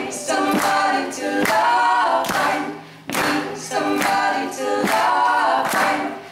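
Three women singing together in harmony into microphones, holding long notes in two phrases with a short break between them.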